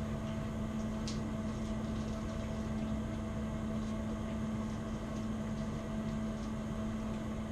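A steady mechanical hum holding an even pitch, with a faint click about a second in.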